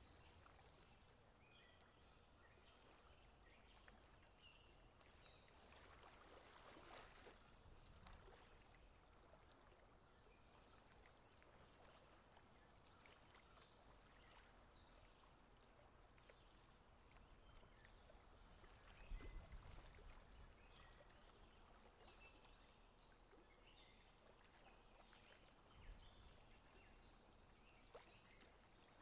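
Near silence: faint outdoor ambience, with a soft swell of low noise around a quarter of the way in and another about two-thirds of the way in.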